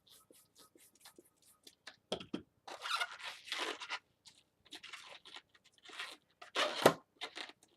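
Hands working a yellow latex 260 modelling balloon, rubbing and crinkling the rubber in short bursts, with a louder knock about seven seconds in.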